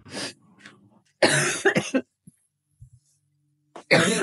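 A woman coughing in three bouts: a single short cough at the start, a run of coughs about a second in, and another run near the end. It is a lingering cough that she says has lasted about two weeks.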